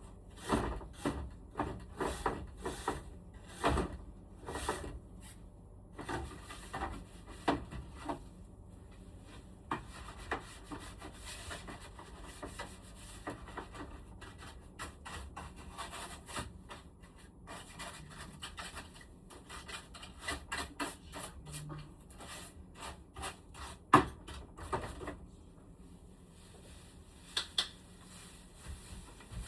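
Hands working on the parts of a room air conditioner during cleaning: rubbing and scrubbing with many clicks and knocks of plastic parts, busiest in the first few seconds, and one sharp click near the end.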